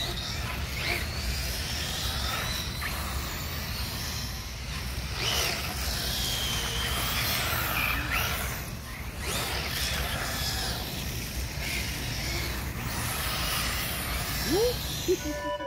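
Arrma Typhon XL electric RC buggy driving on concrete: its motor whines up and down in pitch with the throttle over a steady rushing noise, with a quick rising whine near the end.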